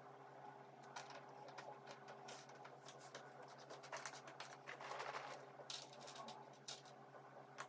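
Faint clicking and rustling of cardboard jigsaw puzzle pieces being picked up and sorted by hand on a tabletop, busiest around the middle.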